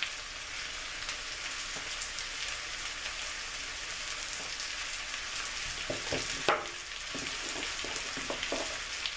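Sliced potatoes and onions frying in oil in a pan, a steady sizzle. A few light knocks come about two-thirds of the way through.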